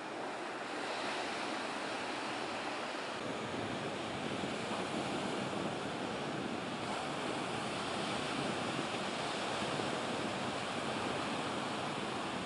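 Ocean waves breaking and washing over a sandbar beach break, a steady rush of surf noise that grows a little louder about a second in, with wind on the microphone.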